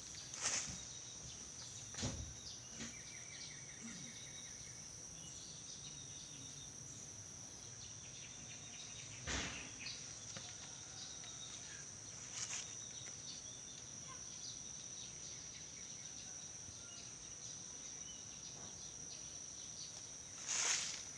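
Steady high-pitched insect chorus, with a few scattered soft knocks, the loudest near the end.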